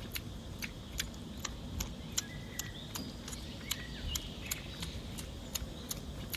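Outdoor rural ambience: a regular ticking of sharp clicks, about two or three a second, with short bird chirps scattered over it.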